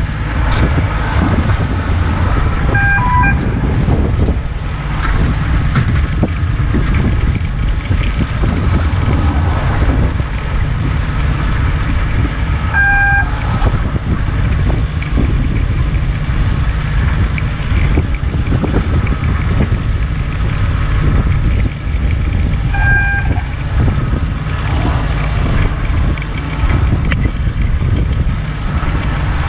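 A fishing boat's engine runs with a steady low rumble under heavy wind noise on the microphone. A short electronic beep sounds three times, about ten seconds apart, typical of a longline setting timer that marks when to clip on the next branch line.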